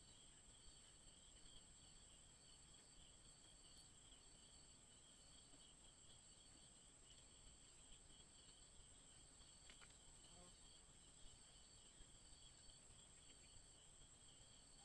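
Faint insect chorus: several steady high-pitched trills, joined by a rapid pulsing chirp about two seconds in and again around ten seconds.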